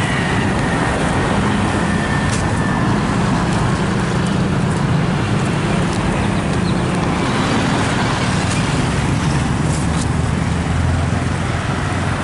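Street traffic: a steady rumble of vehicle engines and road noise.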